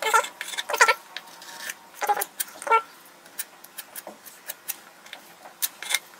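Domestic cat meowing, four short calls in the first three seconds, followed by scattered light clicks and taps.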